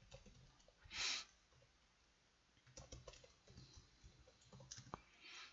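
Faint computer keyboard typing: a run of soft key clicks through the second half, with a short soft hiss about a second in.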